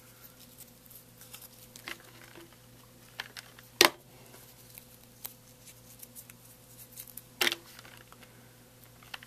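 Scattered light clicks and taps of hands handling paper flower petals and a hot glue gun on a tabletop, with two louder sharp clicks about four seconds apart, over a faint steady low hum.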